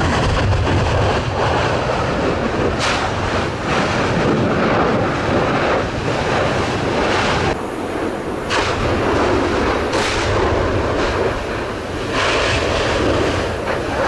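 Newly opened lava fissure erupting: a continuous deep rumbling rush, broken by several sudden blasts as lava spatter is thrown up.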